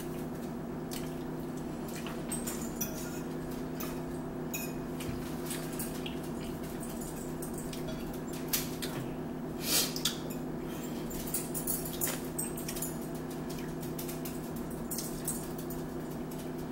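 Forks clicking and scraping on plastic plates while eating, scattered light clinks with a louder one about ten seconds in, over a steady low hum.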